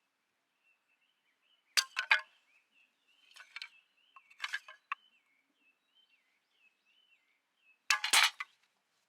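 Metal cookware and utensils clinking and clattering in four short bursts, the first and last the loudest.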